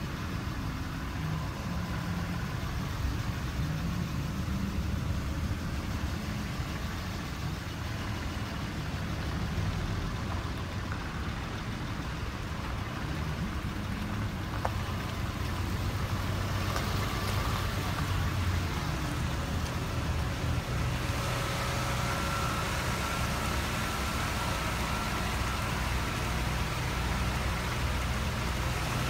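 Motor vehicle running, a steady low rumble. From about 21 seconds in, a brighter hiss joins it.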